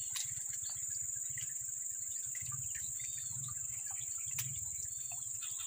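Insects trilling steadily in one continuous high-pitched drone, with two sharp clicks, one just after the start and one about four seconds in.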